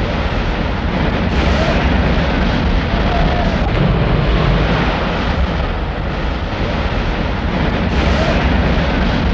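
A dense, steady rush of wind and sea with a heavy low rumble, swelling up twice about six to seven seconds apart.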